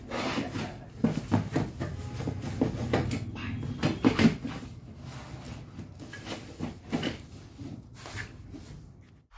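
Cardboard carton flaps and plastic wrapping rustling and knocking as a packed item is handled and pushed into the box, in an irregular run of crinkles and taps.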